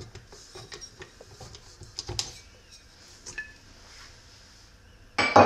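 Kitchen handling noise as kneaded bread dough is taken out of a stand mixer's stainless steel bowl and off its dough hook: scattered small clicks, scrapes and knocks of metal and glassware, with one louder knock near the end.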